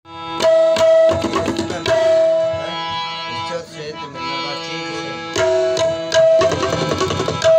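Tabla strokes over a harmonium's sustained reedy notes and chords. Clusters of sharp tabla hits, some ringing on briefly, come near the start and again near the end, with a softer stretch in the middle where the harmonium carries on.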